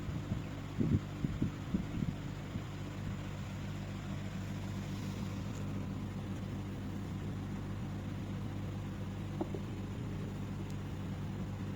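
Steady low mechanical hum of a running engine or machine, with a few short knocks in the first two seconds.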